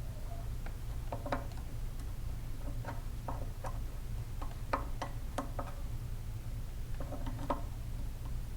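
Irregular light metallic clicks and taps as a hand tool turns an Ezloc threaded insert into a freshly tapped bolt hole, over a steady low hum.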